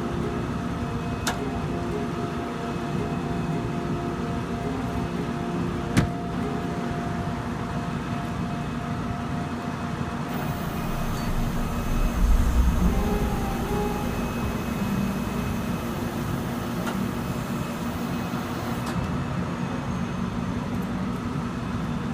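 A vehicle engine running steadily, with a couple of sharp clicks and a low thump about twelve seconds in.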